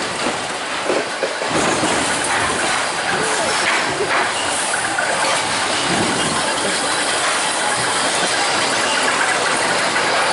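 Spinning wild-mouse roller coaster car running along its steel track: a steady, noisy rumble and rush of wheels on rail.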